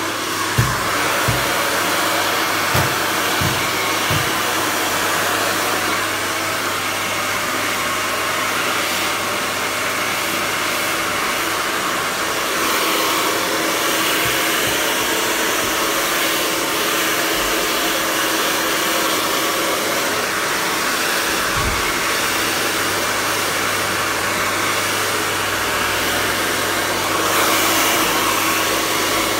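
Handheld hair dryer blowing steadily, blow-drying hair, with a few soft low knocks in the first few seconds.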